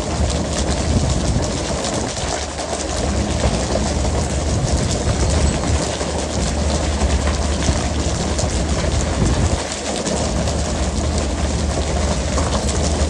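Fishing boat's engine running with a steady low rumble under a constant hiss and splash of water sprayed and churned along the hull, with scattered small clicks and knocks on top.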